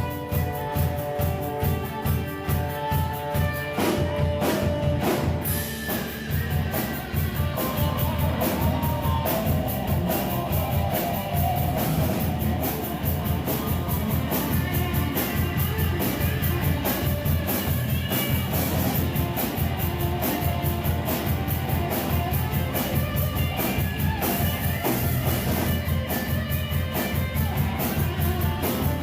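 Live rock band playing, with drum kit and electric guitar. Held chords for the first few seconds, then a steady, driving drum beat comes in about four seconds in and carries on.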